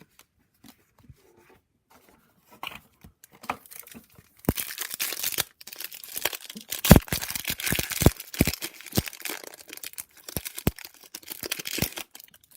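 A trading card pack's wrapper being torn open and crinkled by hand: a few faint clicks, then from about four seconds in a long stretch of crackling, tearing and crumpling with sharp snaps, pausing briefly twice.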